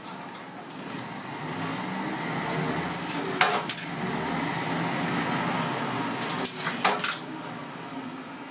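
Steady mechanical hum in the cab of a stopped KiHa 54 diesel railcar, growing louder about a second in, with two bursts of sharp metallic clinks and rattles: one about three and a half seconds in and a longer one around six to seven seconds.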